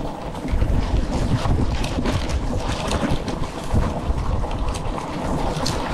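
Wind buffeting the microphone of a chest-worn camera on a moving electric scooter: a steady low rumble and rush, with a few brief knocks from bumps on the path.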